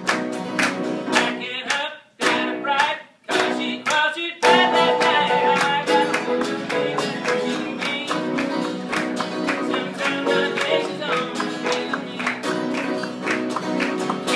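Grand piano and strummed acoustic guitar playing a rock-and-roll blues number live. The music stops short twice in the first few seconds, then plays on without a break.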